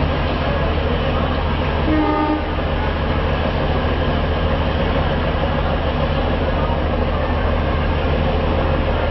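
Diesel train engine idling at the station with a steady low drone, and a short horn toot about two seconds in.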